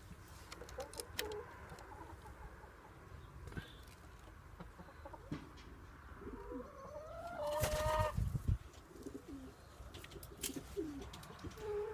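Common wood pigeons cooing softly, a few short low notes at a time. About seven seconds in comes a louder drawn-out call that rises and then holds.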